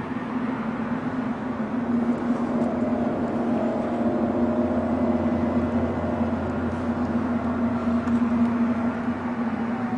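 A steady low drone with one strong held tone, a little louder after about two seconds in: the kind of unexplained hum from the sky that people report they can feel vibrating.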